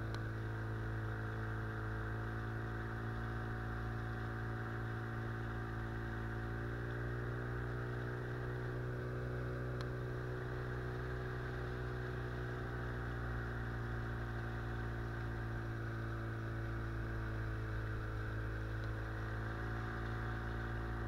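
Outboard motor on an inflatable boat running steadily under way, an even engine drone with a slight shift in pitch about seven seconds in and again near the end.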